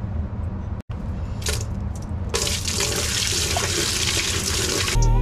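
Water poured in a steady stream into a plastic sump pit basin, splashing onto the submersible sump pump, to fill the pit and test the pump. The pouring starts about two and a half seconds in.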